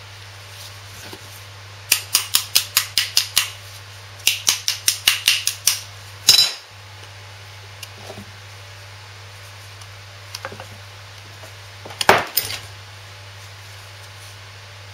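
Two quick runs of light metal-on-metal taps, about five a second, each followed later by a single louder knock with a short ring: a hammer tapping the saw-slit old small-end bush out of a Lister D connecting rod.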